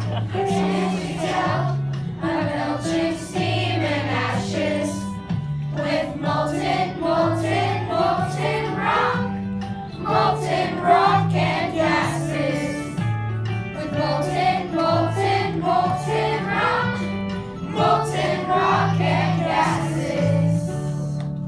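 Music with a choir singing over an accompaniment, carried by a bass line that steps between held notes.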